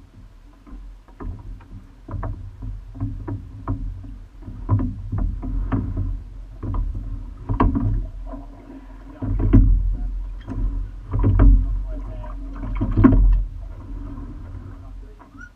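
Single racing scull being rowed: a run of irregular sharp clicks and knocks from the oars and rigging, over water noise and a low rumble that swells several times in the second half.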